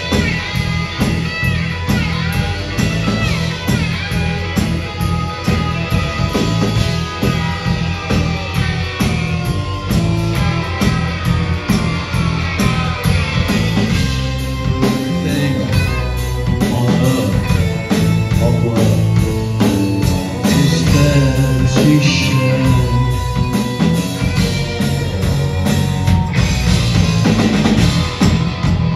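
Live rock band playing at full volume: electric guitars, bass and a drum kit, with a steady beat.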